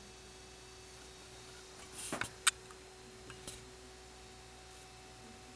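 Small rotating motor of a sound-activated LED disco-ball party light running on its lowest speed setting, giving a faint steady whine. This whine is heard only at the slowest setting and goes away at higher speeds. A few light clicks come about two seconds in.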